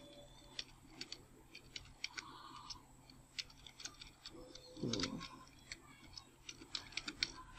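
Computer keyboard keys tapped slowly and unevenly while a short phrase is typed, giving faint scattered clicks. A brief low sound comes about five seconds in.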